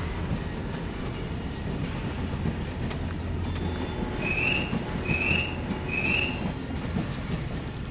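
Ore freight train running with a steady low rumble, metal wheels squealing thinly for a couple of seconds midway. Three short high squeaks about a second apart come during the squeal.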